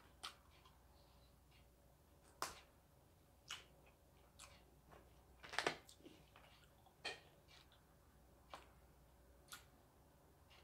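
Scattered soft clicks and mouth smacks, about eight spaced a second or so apart with the loudest about halfway, as sugar candy is bitten and sucked out of thin plastic straws.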